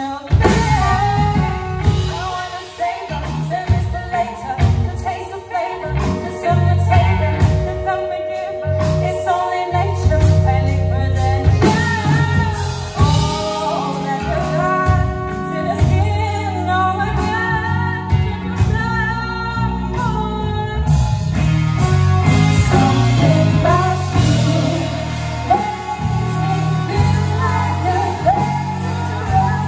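Live pop-rock band playing with female lead vocals: electric guitars, bass, drum kit and saxophone under two female singers.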